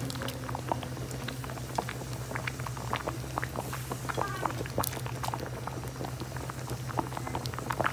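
A pot of milk and vermicelli boiling, its bubbles popping in quick, irregular succession over a steady low hum.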